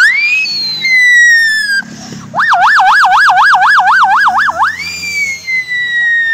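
A man imitates emergency-vehicle sirens with his voice through cupped hands. First comes a wail that rises and then slowly falls. After a short break there is a rapid yelp, warbling up and down about four times a second for a couple of seconds, then another rise and a long, slow fall.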